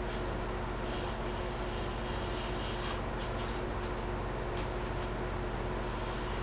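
Steady low electrical hum with a faint hiss, and a few brief soft rustles between about three and four and a half seconds in.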